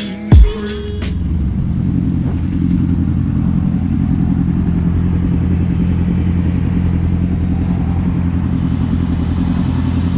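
Kawasaki Ninja 300 parallel-twin engine running steadily at a constant low engine speed, after a short burst of hip-hop music that cuts off about a second in.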